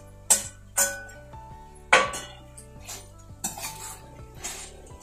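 A metal spoon clinking and scraping against a kadai while stirring fried mushrooms into the Manchurian sauce: three sharp clinks in the first two seconds, then softer knocks.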